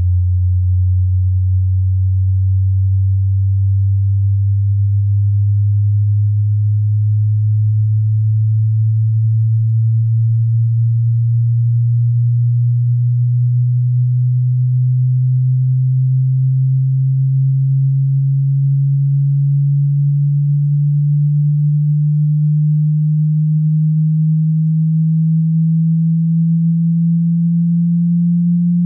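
Hearing-test sine tone sweeping slowly upward: one very low pure tone that rises gradually and evenly in pitch at a steady level.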